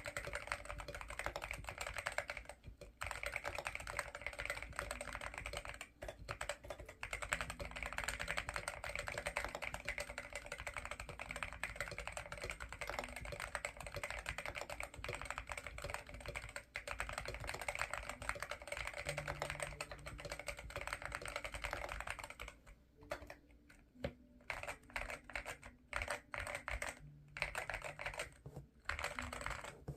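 Continuous fast typing on a mechanical keyboard with Akko Rosewood linear switches, a dense run of keystroke clacks. After about 22 seconds the typing turns sparser and stop-start, with short pauses.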